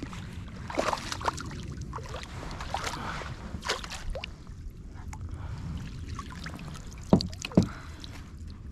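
Knocks and clicks of handling in a kayak, over a steady low rumble; the two loudest knocks come close together near the end.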